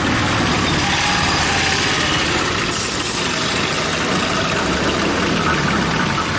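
Hot oil sizzling steadily in an iron kadai as jalebi batter is piped into it, over the steady running of an idling engine.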